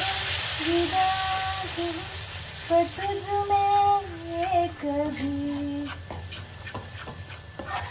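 A high voice singing a Hindi song line unaccompanied, holding long notes. A hiss sounds during the first second, and a few light clicks come in the second half.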